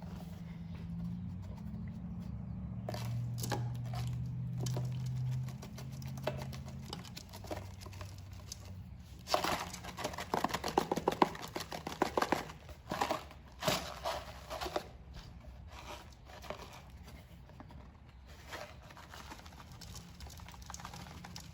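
Baking soda being shaken out of its cardboard box into a container, a dense run of crinkly, crackling taps and rustles for several seconds about nine seconds in, with scattered ticks afterwards. A low steady hum sits under the first several seconds.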